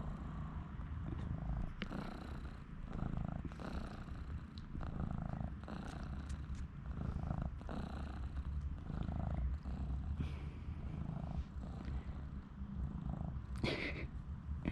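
Mother cat purring steadily and closely while her newborn kittens nurse, with a brief high-pitched sound near the end.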